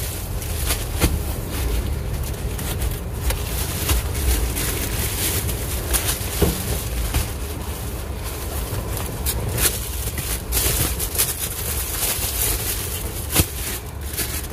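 A steady low rumble, with scattered crackles and clicks of plastic-bagged flatbread being shifted and handled.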